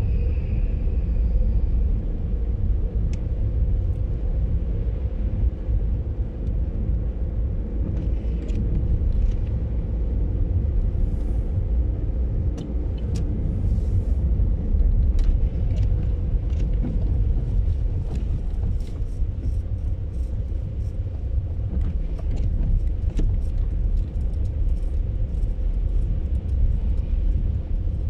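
Car interior road noise while driving on a wet, slushy snow-covered road: a steady low rumble of engine and tyres with a faint constant hum. Scattered short clicks and ticks come in from about a third of the way in and grow more frequent toward the end.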